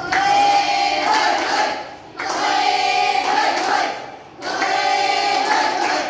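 A group of school students singing in unison: three phrases of about two seconds each, with short breaks between.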